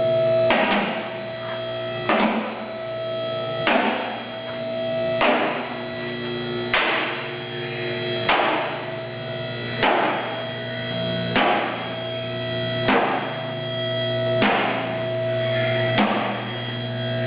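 Music with sustained chords and a strong drum hit about every second and a half.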